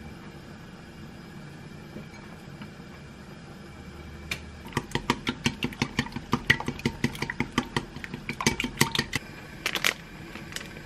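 Raw eggs being beaten with chopsticks in a glass bowl: a fast, even run of clicks of the chopsticks against the glass, about five a second, starting a little under halfway through and ending with a short cluster of sharper clicks near the end. Before the beating there is only a faint steady hum.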